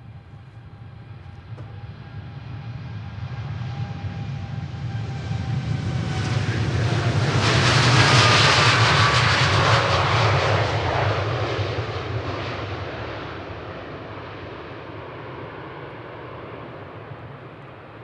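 Boeing 787-8 jet airliner taking off past the listener, its engines at takeoff power. The sound swells to a peak about halfway through, then fades away, with an engine whine sliding down in pitch as it goes by.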